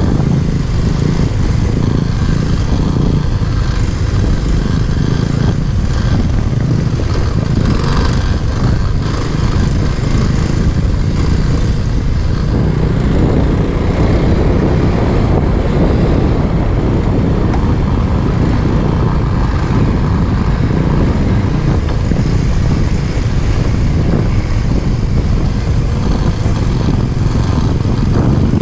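Off-road motorcycle riding along a rough, stony forest track, its engine running steadily with a heavy low rumble throughout.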